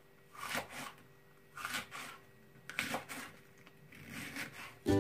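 Kitchen knife slicing through a head of cabbage on a cutting board, four strokes about a second apart.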